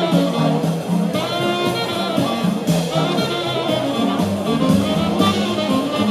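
A jazz big band playing: brass and saxophone sections sound together over a rhythm section with drums.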